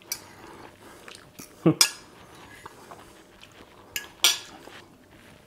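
Metal fork clinking and scraping against a ceramic plate while cutting through a portion of baked eggplant parmigiana, with sharp clinks about two seconds in and again near four seconds.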